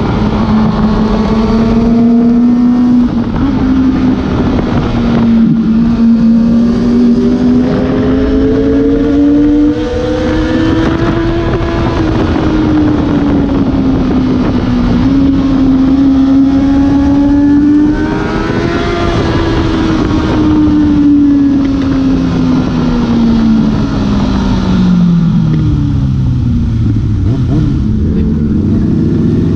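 Kawasaki ZX-6R inline-four sportbike engine running hard at high revs, its pitch rising and falling with throttle and gear changes, under loud wind rush. Near the end the revs fall steadily as the bike slows down.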